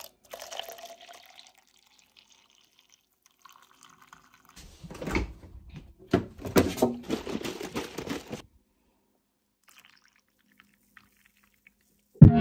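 Coffee trickling from a coffee pot into a paper cup. About four seconds later a fridge door is opened and a carton is taken from its door shelf, with a run of knocks and rattles lasting several seconds. Music starts right at the end.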